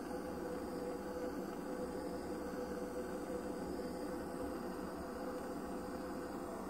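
Handheld butane torch flame hissing steadily as it heats the scored line of a glass bottle, to crack it off by heat shock.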